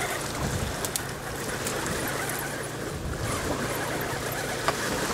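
Small electric RC truck motor and gears whining steadily as an Axial Wraith pulls on a tow strap to recover an overturned crawler, with a few faint clicks.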